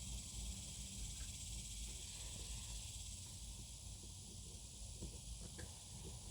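Steady hiss with a low hum and a few faint clicks; near the end a run of soft ticks begins, about three a second.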